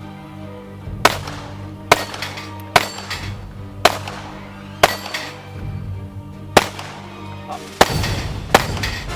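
Eight handgun shots at uneven intervals, mostly about a second apart with a longer pause in the middle, each sharp crack followed by a short ring, over background music.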